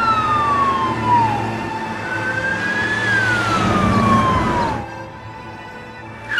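Police car siren wailing: a slow rise and fall in pitch, heard twice over low traffic rumble. The siren stops about five seconds in.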